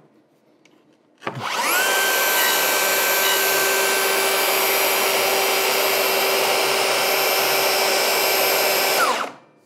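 DeWalt DCS520 60V FlexVolt track saw motor spinning up about a second in, running steadily with a high whine for about seven seconds, then shutting off near the end, its pitch dropping quickly.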